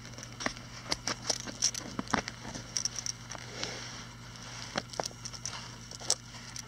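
Hands opening a leather pouch and handling the items packed inside: scattered small clicks, taps and crinkles at irregular intervals as the leather strap is pulled free and the contents are lifted out.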